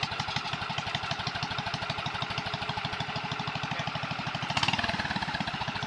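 Honda GX340 11 HP single-cylinder engine running with an even, rapid firing pulse. A brief louder, noisier burst comes about four and a half seconds in.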